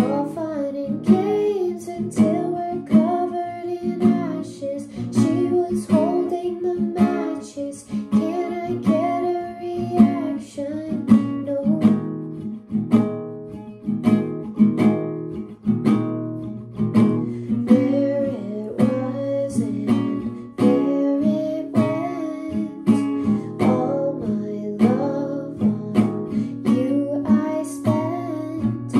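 Acoustic guitar, capoed, strummed in a steady rhythm while a woman sings a melody over it.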